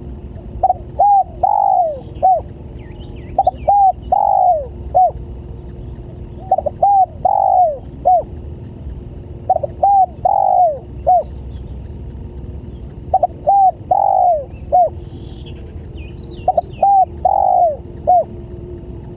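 Spotted dove (tekukur) cooing: six phrases, each of a few short coos around one longer drawn-out coo, repeated about every three seconds. It is the call used as a lure to draw other tekukur.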